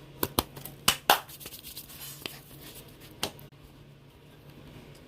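Hands handling packing materials: a quick run of sharp clicks and crinkles in the first second or so, then a few scattered ones.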